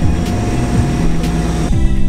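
Background music with a slow beat, about one hit a second, laid over a steady rushing noise of wind and water from the boat under way. The rushing cuts off near the end, leaving the music alone.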